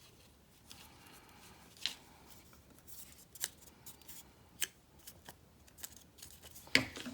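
Paper being handled during gluing: a handful of sharp, isolated clicks and light paper rustles, the loudest click near the end.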